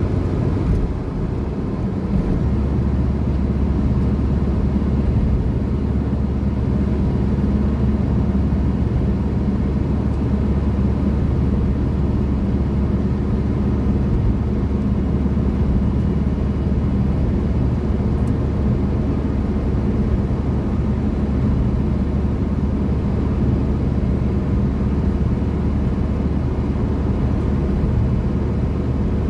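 Car driving at speed on a highway, heard from inside the cabin: a steady low rumble of engine and tyres on the road.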